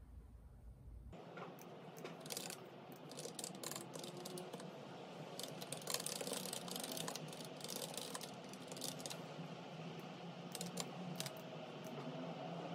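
Typing on a computer keyboard: a quick, uneven run of key clicks that starts about a second in.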